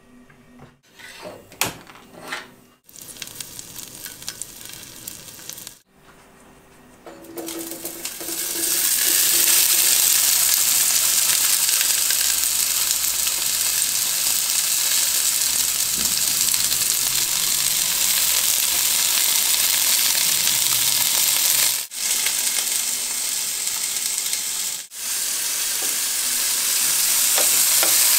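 Halved cherry tomatoes and garlic cloves sizzling in hot olive oil in a nonstick frying pan. There are a few quieter knocks at first, then a loud, steady sizzle from about a third of the way in, with a wooden spoon stirring the tomatoes near the end.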